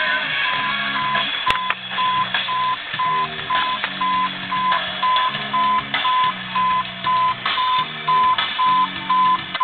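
Even electronic beeping, about two short high beeps a second, over music playing from the car stereo.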